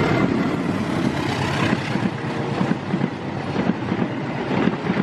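A diesel locomotive and its passenger carriages passing close by at speed: a steady rumble with a rapid, irregular clatter of wheels over the rails, and wind on the microphone.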